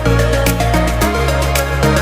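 Background music: an electronic track with a steady beat and sustained bass notes.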